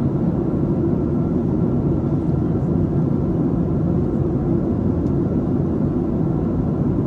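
Steady cabin noise of a Boeing 737-700 on approach: the drone of its CFM56-7B engines and the airflow, heavy in the low end, with a faint steady whine above it.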